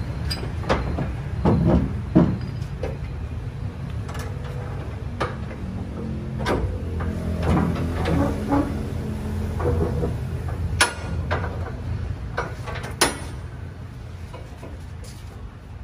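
Scattered knocks and metallic clanks as a steel shipping container's doors and fittings are handled, over a steady low rumble that grows heavier for a few seconds midway.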